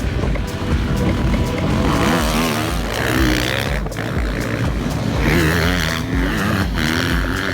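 Motocross bike engines revving up and down as the bikes race, the pitch rising and falling with the throttle.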